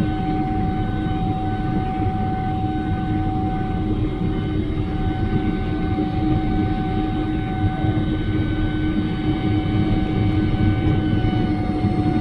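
Cabin noise of a Boeing 777-300 airliner: a steady low rumble of jet engines and airflow with several steady whining tones over it, growing slightly louder toward the end.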